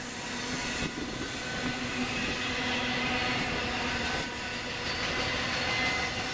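Freight train cars rolling past: a steady rush of wheel and rail noise, with thin steady squealing tones over it.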